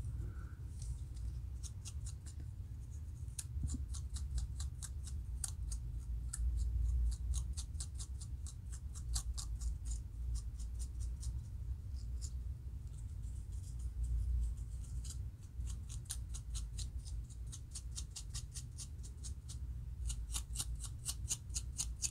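A fine-tooth plastic comb scraping the scalp between locs to lift dry dandruff flakes: quick, crisp scratching strokes, several a second, in runs with short pauses, over a low steady hum.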